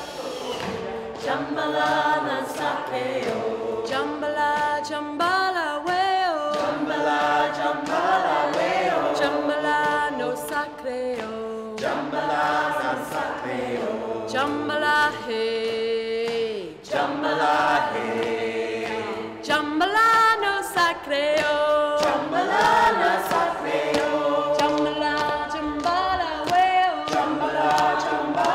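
A choir singing a chant, several voices together in harmony.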